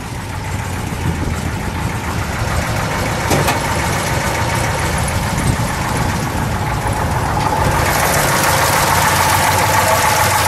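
A 426 Hemi V8 idling steadily, growing louder and fuller near the end as it comes closer. There is one brief click a few seconds in.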